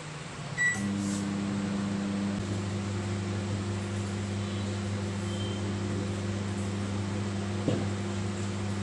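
A convection microwave oven beeps once as it is started, then runs with a steady low hum while heating a frozen lemon, with a light click near the end.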